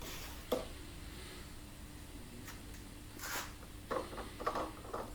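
Faint handling noises as heater parts are worked by hand: a light click about half a second in, a short rustle around three seconds in, and a few soft knocks near the end, over a low steady hum.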